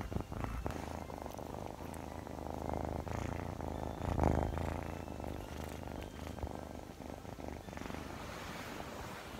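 Scottish Fold kitten purring steadily right at the microphone, with a louder rustle of fur brushing against it about four seconds in.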